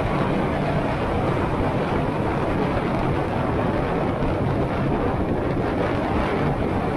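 Honda Shadow 125's small V-twin engine running at a steady cruising pace, mixed with wind rushing over the microphone as the motorcycle rides along.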